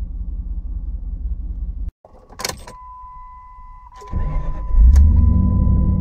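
Jeep Grand Cherokee 4.7 V8 idling, then cut off about two seconds in. A click follows, then a steady high warning chime. About four seconds in the starter cranks and the V8 catches and runs, louder than before.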